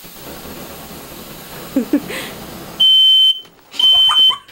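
Smoke alarm sounding two long, loud, high-pitched beeps, the first about three seconds in, set off by smoke. Before the beeps there is a steady hiss.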